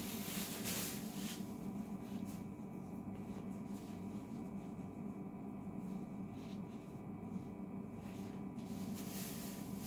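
Clear plastic bag crinkling for about the first second as an apron is pulled out of it, then faint handling sounds, with fabric rustling again near the end as the apron is put on and tied, all over a steady low electrical hum.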